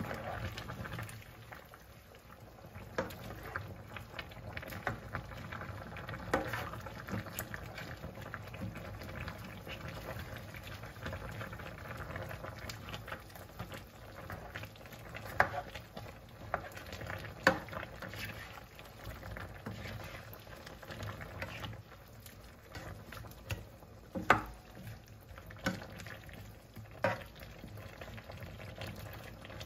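Chicken soup (tinola) with bok choy simmering in a pan, bubbling steadily, while a plastic ladle stirs the vegetables down into the broth. A few sharp knocks of the ladle against the pan stand out, the loudest about halfway and three-quarters through.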